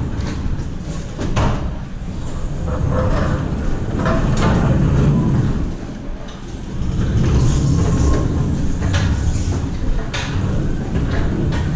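Electric pallet stacker driving over a trailer's metal checker-plate floor: a steady low rumble from its wheels with frequent rattles and knocks. The rumble eases off briefly about halfway through, then picks up again.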